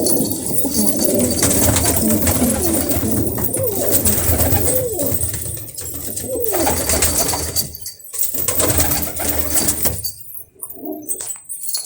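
Domestic pigeons cooing, several overlapping rising-and-falling coos that thin out near the end.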